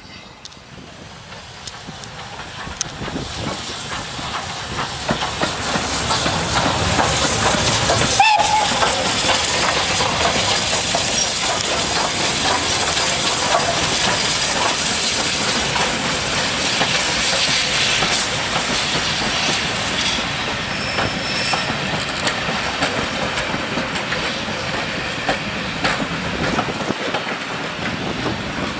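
A double-headed steam train passes close by: BR Standard 5MT 4-6-0 No. 73082 leads a second steam locomotive, followed by rolling coaches with wheels clicking over the rail joints. The sound builds over the first several seconds, then holds steady and loud as the train runs past.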